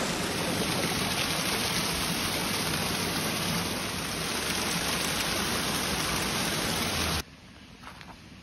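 Water pouring over small concrete weirs in a creek: a steady, full rush that cuts off suddenly about seven seconds in, leaving a much quieter background with a few faint ticks.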